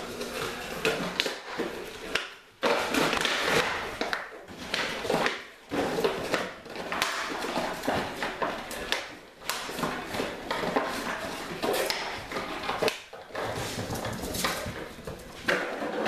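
Puppies play-wrestling on a hard tile floor: irregular scuffling and scrabbling, with frequent clicks and knocks.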